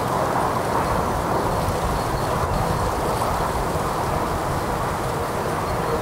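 Autobahn traffic heard from the woods: a steady, unbroken wash of tyre and engine noise with no single passing vehicle standing out.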